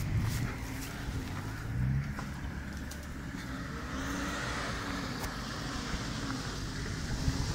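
An off-road 4x4 SUV's engine running and revving, rising and falling, as the vehicle crawls along muddy, water-filled ruts. From about halfway a hissing noise grows beneath it.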